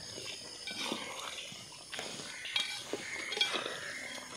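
Metal ladle clinking and scraping against a large metal cooking pot as a thick, simmering duck curry is stirred. There are several separate light knocks, the loudest in the second half.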